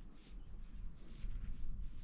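Wind rumbling on the microphone, with faint high-pitched chirps repeating every half second or so, typical of small birds or insects.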